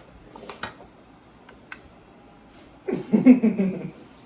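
A person's voice lets out a short wordless vocal sound of about a second, the loudest thing here, about three seconds in. Before it come a brief rustle and a few faint sharp clicks.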